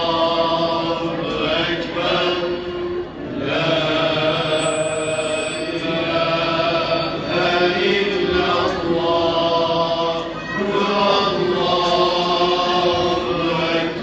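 Male choir singing a slow chant-like hymn in unison, with oud, kanun, ney, frame drum and violin accompanying. It goes in long held phrases a few seconds each.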